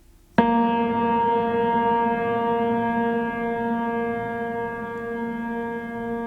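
Relaxation music: a single deep bell-like note struck about half a second in, sounding rich with overtones and ringing on with a slow fade.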